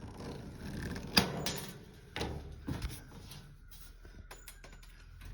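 Sharp clicks and knocks from riveting sheet-metal panels with a hand pop-rivet gun, the loudest snap about a second in and a quick cluster of clicks near the end.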